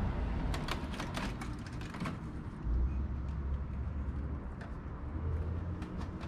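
Plastic front body panel of a scooter being worked loose and pulled off: a run of light plastic clicks and rattles, thickest in the first two seconds, over a low background rumble.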